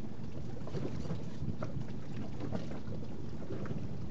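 Wind rumbling on the microphone over choppy sea, with water splashing and a few faint clicks.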